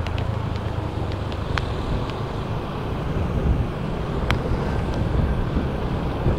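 Road vehicle on the move, heard from on board: a steady low rumble with wind buffeting the microphone, and a few light clicks.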